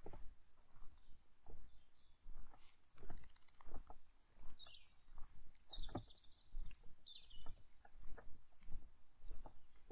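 Footsteps on a lakeside path at a steady walking pace, about two steps a second, with small songbirds chirping and calling over them.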